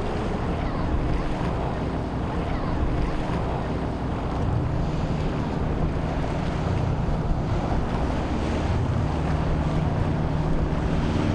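Motor yacht engines running steadily as the boat passes under way, a low hum under the rushing wash of its wake and the surf, with wind buffeting the microphone.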